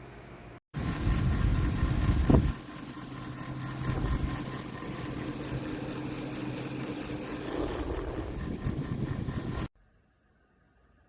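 A motor running with a steady hum over a low rumble. It starts abruptly about a second in, is loudest in the first couple of seconds with a brief surge near two and a half seconds, and cuts off suddenly near the end.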